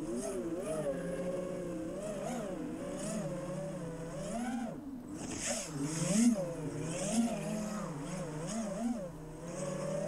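FPV quadcopter's brushless motors and propellers whining in flight. The pitch rises and falls with the throttle, and several quick throttle blips come in the second half.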